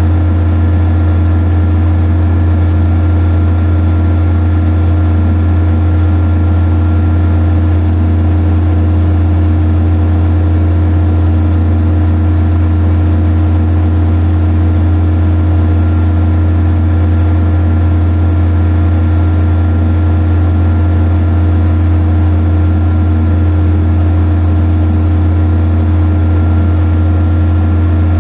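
Kubota F300SW engine-driven welder-generator running steadily, generating power at its outlets. Its engine holds one even, low drone with no change in speed.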